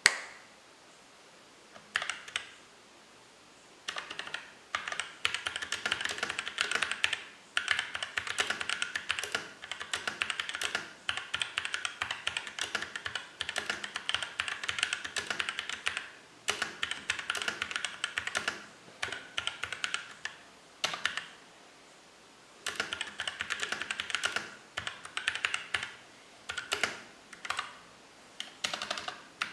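Typing on a mechanical keyboard with Outemu Sky tactile switches lubed with Krytox 104: a few single keystrokes, then quick runs of typing with short pauses. The lubed switches sound smooth, with the slight ping reduced.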